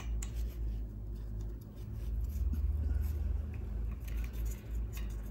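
Faint clicks and scrapes of small metal parts as a bicycle bottom bracket lock nut is spun off the spindle by hand, over a low steady hum.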